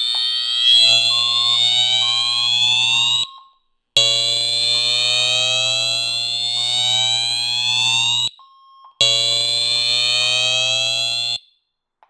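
Fire alarm voice-evacuation speaker sounding a slow-whoop evacuation tone: a rising sweep lasting several seconds, repeated three times with short breaks. Short beeps are also heard. The system is in alarm from a photoelectric smoke detector.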